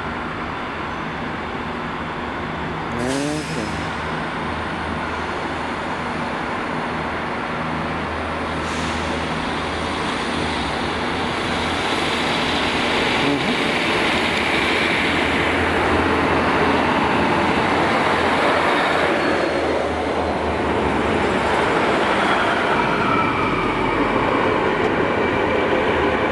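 Class 153 diesel multiple unit running along the platform, its diesel engine and wheels on the rails growing louder as it comes up and passes close by. A short rising whine about three seconds in.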